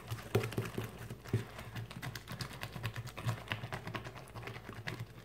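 Sticky glitter slime being stirred with a wooden popsicle stick on a plate: a run of soft, irregular clicks as the slime is worked and pulled.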